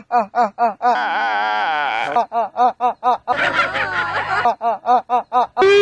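A man's voice in a rhythmic run of short 'ha-ha' pulses, about four a second, broken about a second in by a long wavering wail, then by a rougher stretch of voices before the pulses resume.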